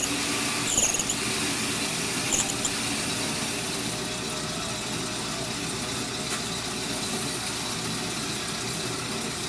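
Very high-pitched squeals of a tool cutting metal from a moped's cylinder, in three short loud bursts over the first three seconds, then a fainter steady whine that dies away.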